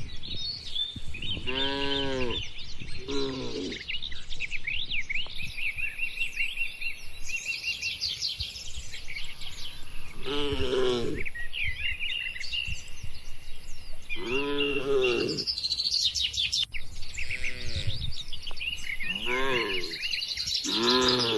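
Cattle giving short moos, about seven calls spaced a few seconds apart, each rising and falling in pitch. Birds chirp continuously over them, and a steady high-pitched tone joins about five seconds in.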